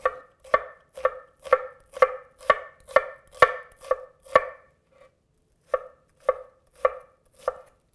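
Chef's knife slicing a shallot on a wooden cutting board: evenly spaced knocks of the blade on the board, about two a second, with a pause of about a second midway.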